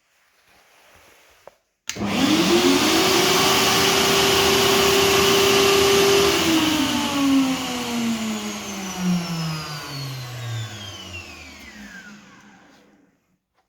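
An electric power tool's motor is switched on about two seconds in and spins up to speed within half a second. It runs steadily for about four seconds, then is switched off and winds down with a falling whine over about six seconds.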